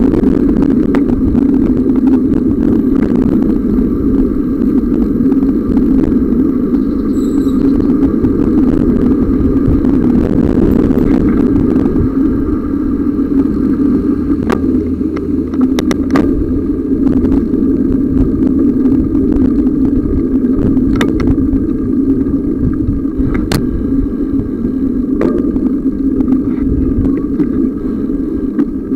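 Steady rumbling noise from a camera carried on a moving bicycle: wind on the microphone mixed with rolling noise from the ride. A few short sharp clicks or rattles come through in the second half.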